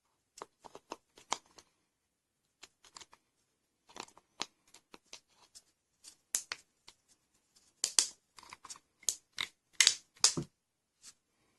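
Irregular clicks and crackles of materials being handled and worked by hand, in short clusters that grow louder and denser in the second half, with the loudest snaps near the end.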